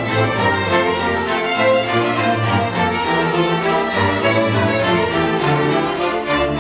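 String orchestra playing: violins, violas, cellos and double basses bowing a classical piece together, with sustained notes that keep moving.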